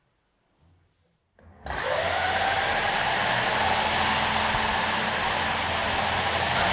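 Electric drill with a hole saw starts about a second and a half in, its whine rising as it spins up, then runs steadily as the saw cuts into the wooden door around the lock cylinder hole.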